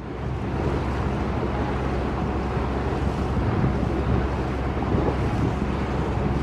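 A boat's engine running steadily underway, a low hum under wind noise on the microphone.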